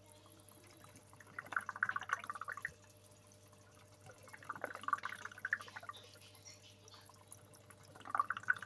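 Water gurgling and trickling in an aquarium container, in three short spells about three seconds apart, over a faint steady hum.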